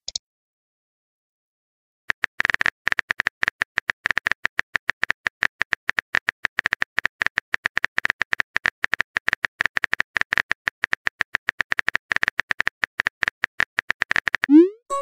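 Rapid clicks of a texting app's simulated keyboard as a message is typed out, starting about two seconds in. Just before the end they give way to the rising tone of a message-sent sound.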